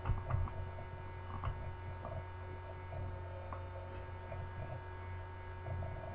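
Steady low electrical hum, with a few faint ticks scattered through it.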